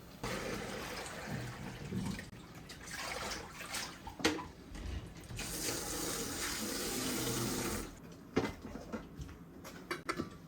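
Kitchen tap running into a sink, turned on and off a few times; the last and loudest run stops suddenly about eight seconds in. Between runs there are a few clunks of things handled in the sink.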